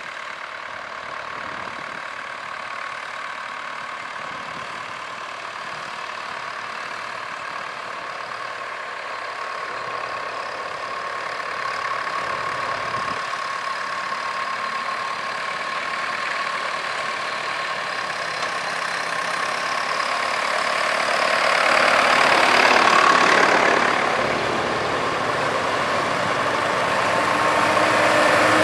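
Engines of several tractors running as they come along a lane, growing louder as they approach. The sound swells about 22 seconds in, then rises again near the end as a large red SAME tractor draws close.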